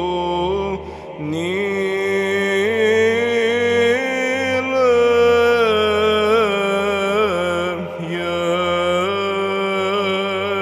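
Slow Byzantine Orthodox chant: a voice sings an ornamented melody in long held notes, with short breaks about a second in and again near the eight-second mark.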